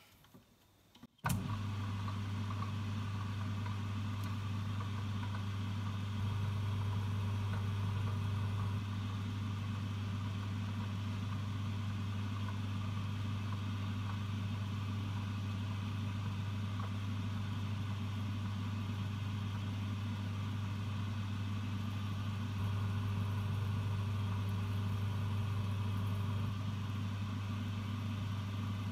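1953 Boxford metal lathe switched on just over a second in, then its motor and drive running steadily with a low hum while a center drill is fed into the work. The sound grows a little louder twice, for a few seconds each time.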